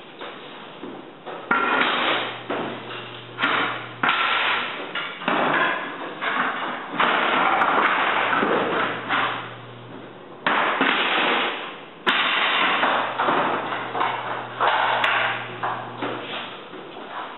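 Hardwood floorboards knocking and clattering as they are handled and laid out on the floor, with repeated sharp knocks, about a dozen sudden hits through the stretch, some running together into longer clatters.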